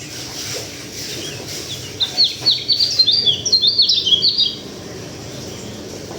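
Local Sulawesi white-eye (pleci) singing a quick burst of short, high chirping notes, starting about two seconds in and lasting about two and a half seconds.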